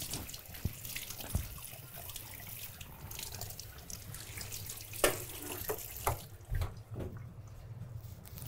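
Kitchen tap running into a sink as a spoon is rinsed under it, with a few sharp knocks and clinks about five seconds in.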